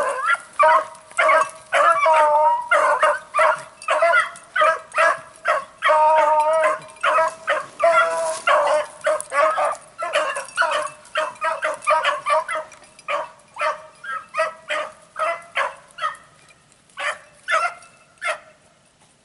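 Two hounds baying on a hot rabbit scent, in quick repeated calls several a second. The calls thin out and grow fainter over the last few seconds as the dogs run off on the chase.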